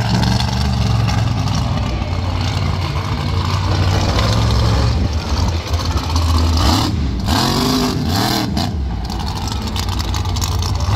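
Bounty Hunter monster truck's engine running loud under throttle, with several quick revs up and down about two-thirds of the way in.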